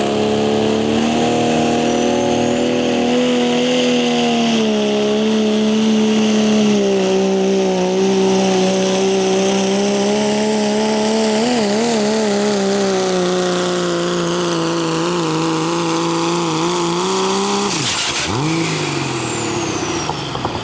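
Turbocharged diesel pickup pulling a sled at full throttle, its engine held at high, steady revs with a high turbo whistle over it, the pitch wavering briefly midway. About 18 seconds in the throttle comes off at the end of the pull: the engine note drops sharply and the turbo whine falls away.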